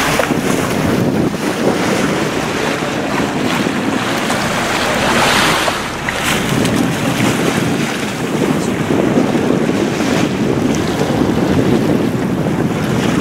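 Wind buffeting the microphone over the rush of water along the hull of a moving boat, a steady noisy rush that swells briefly about five seconds in.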